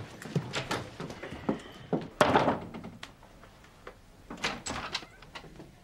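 A door being handled: clicks and knocks, with a heavy thunk about two seconds in and a few lighter knocks near the end.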